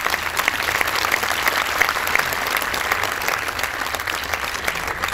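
Audience applauding: many hands clapping at once, steady, beginning to die away at the very end.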